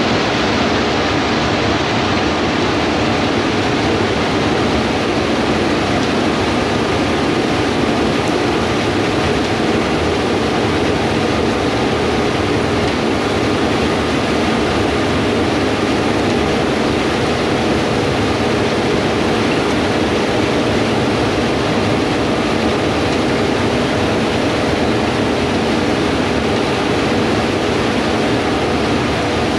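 Heavy diesel farm machinery running steadily: a constant loud noise with a faint engine hum and no changes.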